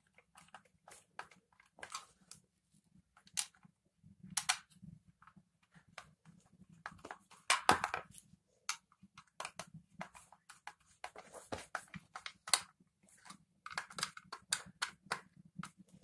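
Scattered clicks, knocks and scrapes of a small plastic handheld vacuum cleaner's housing and screws being handled during reassembly, the loudest knocks about halfway through and again about three-quarters of the way.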